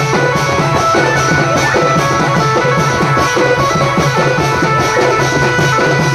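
Koraputia band party music for dhemsa dancing, played loud through horn loudspeakers: a steady, even drumbeat under a sustained melody.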